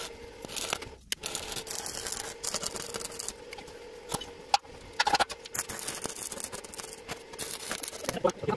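Stick (arc) welding on steel square tubing: the electrode arc crackles and sizzles unevenly, with a brief break about a second in.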